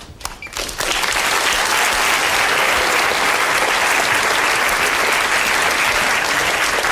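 A lecture-theatre audience of children clapping for a volunteer, a few scattered claps swelling within the first second into full, steady applause.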